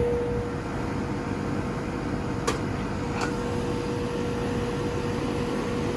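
2017 Ameristar 2-ton air-conditioner condenser with a Copeland scroll compressor running steadily just after kicking on, a constant hum over the whoosh of the fan. Two short ticks come about two and a half and three seconds in.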